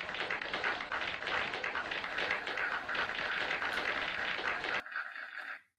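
Recorded audience applause: many hands clapping at once, played back from a stock applause clip. It drops in level about five seconds in and then cuts off abruptly.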